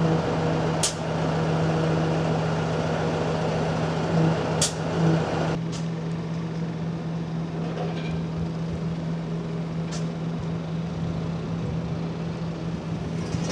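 A steady machine drone, such as a running engine, with four short sharp hisses or clicks and a background that thins about halfway through.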